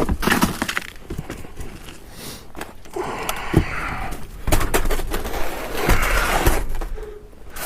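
Packaged food being rummaged through and handled: packaging rustling and crinkling, with scattered knocks and clunks as items are moved.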